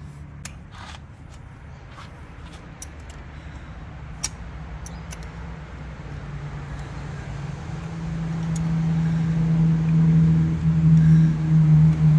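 A motor running steadily, its low hum getting much louder over the last few seconds, with a few light metallic clicks from hand work on the fuel filter head.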